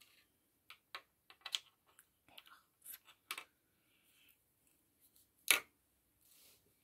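Soft nail dust brush swept over a plastic nail tip in a run of short, quick strokes, brushing off filing dust. Near the end comes one louder, sharper tap.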